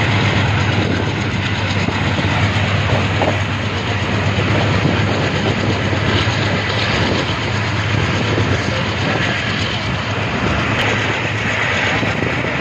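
Passenger train coach running along the track, heard from its open doorway: a steady, loud rumble and rattle of the wheels on the rails.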